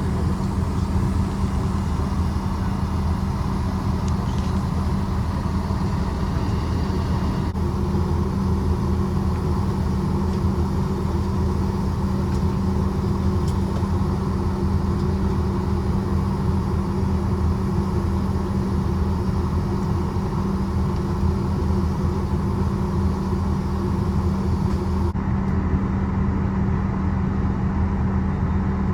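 Steady, loud low drone of a vehicle running. Its tone changes abruptly twice, about seven seconds in and again near the end.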